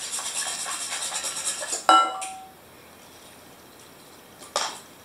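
Wire whisk beating an egg batter in a mixing bowl: quick, rhythmic clinking strokes against the bowl. About two seconds in comes one loud clink that rings briefly, as the whisk knocks against the bowl. A single short tap follows near the end.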